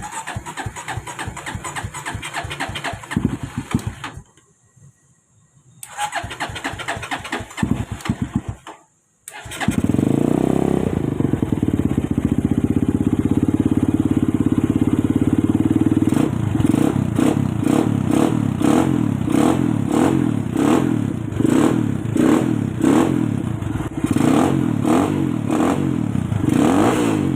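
Honda XR200's single-cylinder four-stroke engine running through an aftermarket exhaust pipe, heard in two short choppy stretches. After a brief break it settles into a loud steady run, then is blipped repeatedly with short revs through the second half.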